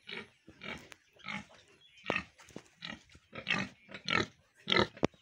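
Pigs grunting: a string of about ten short, rough grunts, roughly two a second.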